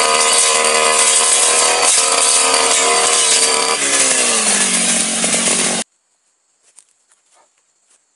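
Backpack brush cutter engine running at high revs while cutting grass. About four seconds in, the revs fall and settle lower. Just before six seconds the sound cuts off suddenly, leaving only a few faint clicks and insect sounds.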